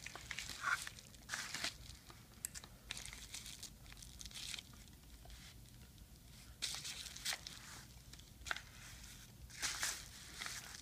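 Plastic laptop screen bezel being worked loose by hand: faint, irregular scraping and crinkling with a few small clicks as its clips come apart.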